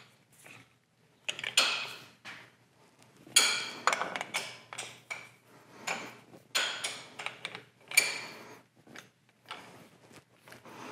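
Steel parts clinking and rattling in several short bursts: a wrench, the crane's lifting chain and hook working against a heavy lathe chuck on the spindle, with a brief metallic ring about eight seconds in.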